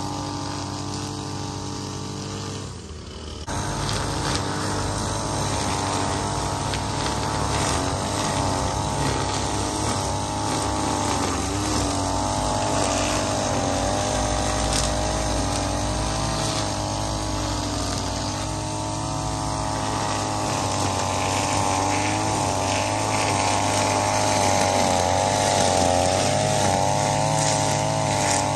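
Small gasoline engine of lawn equipment running continuously, its pitch wavering slightly as the throttle and load change, with a brief drop about three seconds in.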